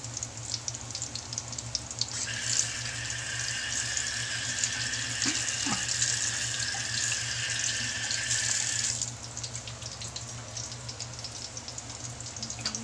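Tiny shrimp (alamang) patties frying in hot oil in a wok, sizzling with a steady crackle. About two seconds in, a louder steady rushing hiss, as of running water, comes in over the frying and cuts off suddenly about nine seconds in.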